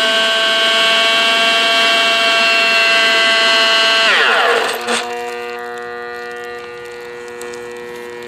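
Hoover vacuum cleaner motor running at full speed with a loud high whine, then its pitch drops sharply about four seconds in, with a crack about a second later, after which it runs on with a quieter, lower hum: the motor is burning out.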